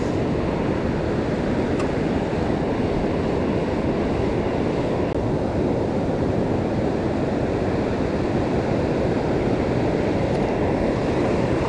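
Steady wind rumbling on the microphone, mixed with the wash of breaking surf.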